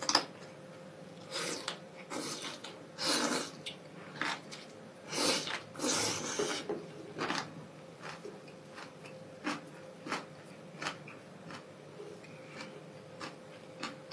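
A person slurping spicy instant noodles in a series of short bursts over the first seven seconds, then chewing with small wet mouth clicks.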